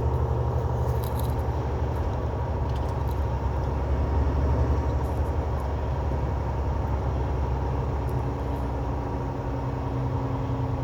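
Semi truck's diesel engine pulling steadily under light load, a low even drone mixed with road noise from the cab. A further steady tone joins the drone about eight seconds in.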